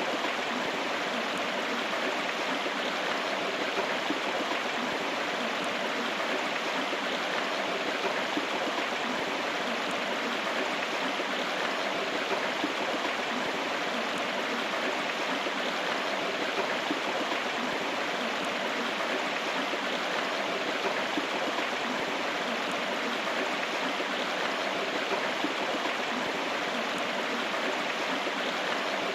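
River water running steadily: an even rushing flow.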